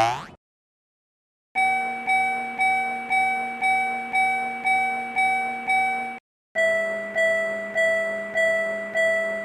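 Railroad crossing warning bell ringing at about two strikes a second, stopping about six seconds in. After a short pause a second crossing bell at a lower pitch takes up the same rhythm. The tail of a short boing sound effect is heard at the very start.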